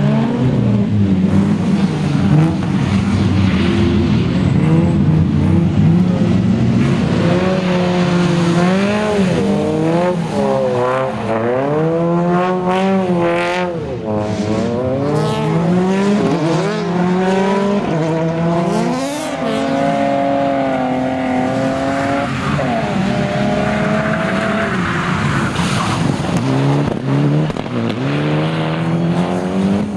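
Rally car engines revving hard and dropping back again and again through gear changes, as cars slide through tight corners on a wet track, with some tyre squeal.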